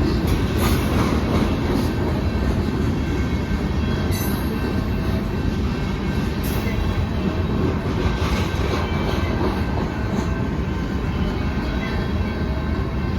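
Canadian National freight train rolling past: a steady heavy rumble of cars on the rails, with a few sharp clacks.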